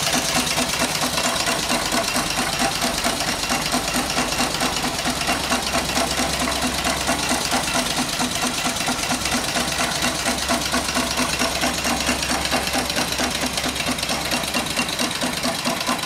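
Small single-cylinder live steam engine with an 8-inch flywheel and flyball governor running steadily on steam from a coal-fired vertical boiler, its strokes making an even, rapid knocking rhythm.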